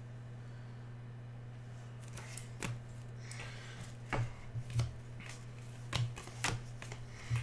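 Football trading cards being flipped through and slid against each other by hand: a string of short flicks and snaps starting about two seconds in, over a steady low hum.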